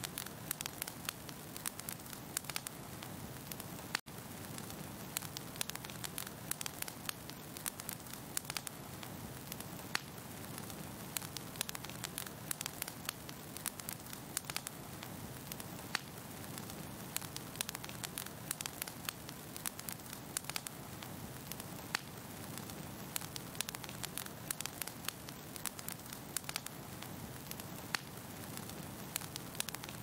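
Fire crackling: a steady low rush of flames with frequent, irregular sharp pops and snaps. There is a momentary break about four seconds in.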